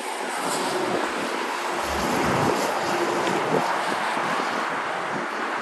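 Road traffic noise as a fuel tanker semi-truck rolls past: a steady rush of tyre and road noise rather than a clear engine note.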